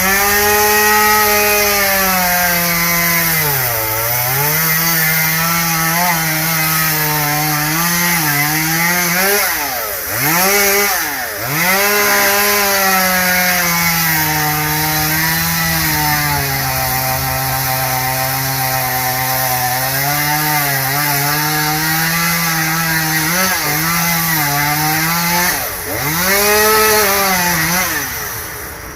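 Two-stroke chainsaw running at high revs and cutting wood, its engine pitch sagging as the chain loads up in the cut and recovering. Around ten to twelve seconds in, and again near the end, the revs drop sharply and climb back.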